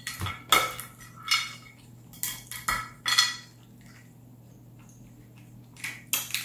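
Cooked crawfish shell being cracked and peeled apart by hand: a series of short crackles and snaps in the first three seconds, a pause, then a few more near the end.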